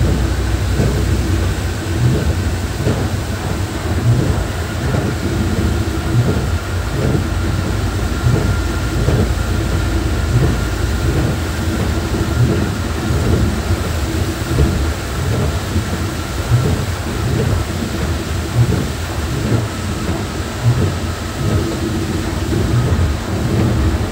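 KSRTC bus driving on the road: a steady low rumble of engine and road noise with frequent irregular thumps over bumps, and a faint high whine that drifts slowly lower.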